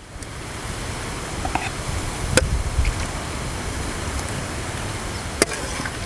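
Wind on the microphone: a steady rushing hiss with a gusty low rumble. Two sharp clicks come about three seconds apart.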